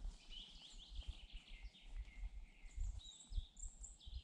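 Birds singing in woodland: many short, high chirps and quick gliding notes overlapping, with a few low soft thumps underneath.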